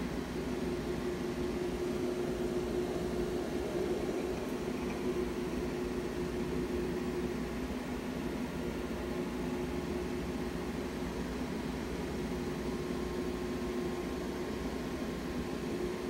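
Steady machine hum with hiss: a droning tone that fades about halfway through and comes back near the end.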